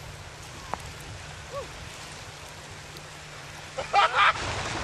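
Steady wind noise on the microphone, then about four seconds in a man gives a short, loud celebratory whoop.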